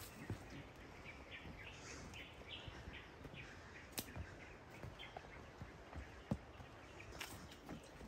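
Quiet outdoor ambience with a bird calling in a run of short chirps for a few seconds, and a few sharp knocks, the loudest about six seconds in.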